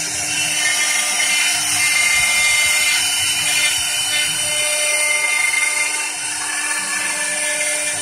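CNC wood lathe's high-speed carving spindle running steadily with a high-pitched whine as it cuts a relief pattern into a wooden post, with the hiss of wood being cut.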